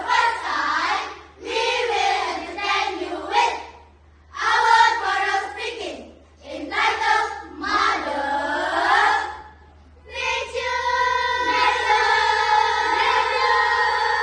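A group of children's voices in unison, chanting short phrases with brief pauses between them, then about ten seconds in a long note held and sung together.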